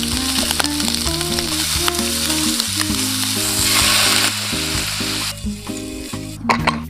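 Food sizzling in hot oil in a pan. The sizzle is loudest in the middle and dies away about five and a half seconds in, over light background music.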